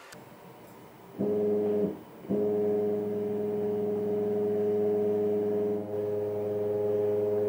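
Closed-loop stepper motor driving a belt-driven 4th-axis rotary table: a steady electric hum with several tones that starts about a second in, stops briefly, then runs on.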